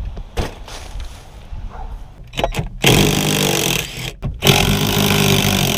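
Rear seat of a 2004 Chevy Cavalier being pulled out of the car: a few light knocks, then two loud, drawn-out scraping groans, each a little over a second long.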